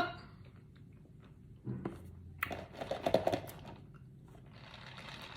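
Close-up eating sounds: a bite and chewing from about two seconds in, with a softer stretch near the end.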